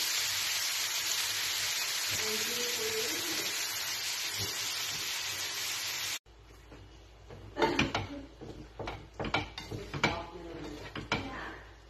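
Meat and vegetables sizzling loudly as they are stir-fried in a wok; the sizzle cuts off suddenly about six seconds in. It is followed by a quieter stretch of sharp clicks and scrapes of a spatula against the wok as noodles are tossed.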